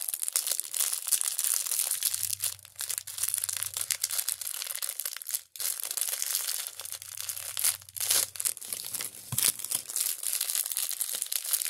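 Wrapping around jewelry being crinkled and torn open by hand: a continuous crackle with a brief break about five and a half seconds in.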